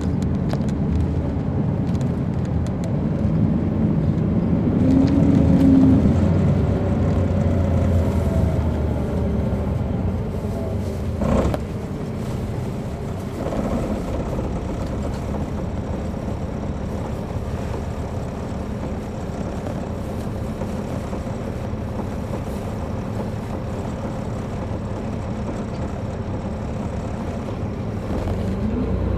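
Caterpillar C13 diesel engine of an MCI D4500CL coach, heard from on board while the bus is under way. It runs louder with shifting pitch for the first ten seconds or so, then settles to a quieter, steady run after a single sharp click about eleven seconds in.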